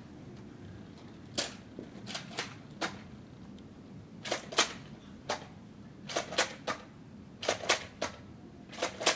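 Nerf dart blasters, a Recon and an Alpha Trooper, being primed and fired: a string of sharp plastic clacks, often in quick pairs, a dozen or more over several seconds.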